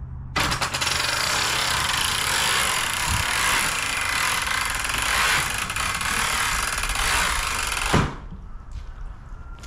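CareFree manual RV awning rolling itself up on its spring-loaded roller, the roller mechanism making a loud, rapid, even clatter for about seven and a half seconds as the fabric winds in. It ends in a knock as the awning seats closed against the camper.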